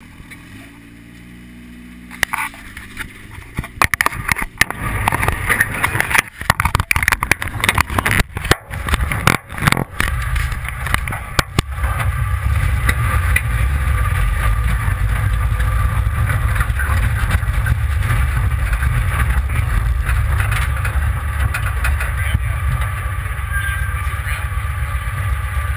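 Off-road buggy's engine running with a steady low rumble. Before it, several seconds of sharp knocks and clatter.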